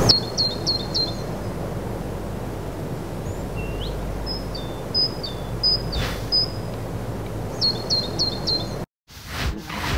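Outdoor ambience: a small bird calls in quick runs of four high chirps, once at the start and again near the end, with scattered single bird notes in between, over a steady low background hum. The sound cuts out abruptly for a moment near the end.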